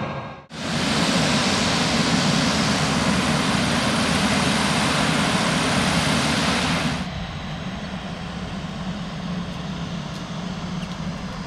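Pilatus PC-21 turboprop aircraft running on the ground: a loud, steady rushing noise. About seven seconds in it drops to a quieter, steady engine noise.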